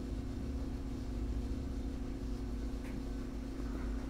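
A steady low hum, with a couple of faint small clicks near the end.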